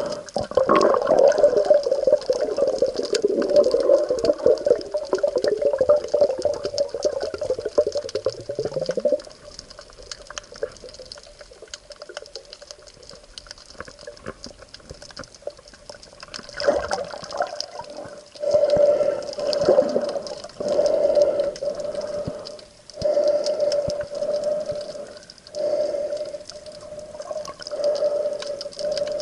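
Water sloshing and bubbling around the camera in the sea, in surges that are loudest for the first third, fade, then return in a steady rhythm, over a constant hum.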